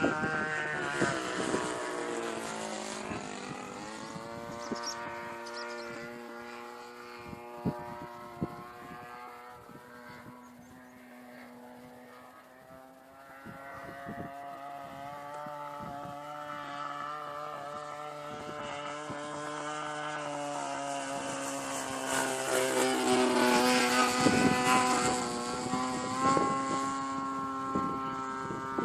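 Christen Eagle biplane's piston engine running in flight. Its pitch falls over the first few seconds and then holds steady. Past the middle it rises and grows louder, with more rushing air noise.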